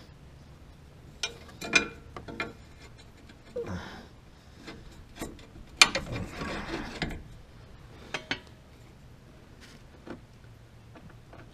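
Metal hand tools clicking, knocking and scraping in irregular bursts, with a sharp click about six seconds in, as an Allen key is worked against a seized transmission fill plug.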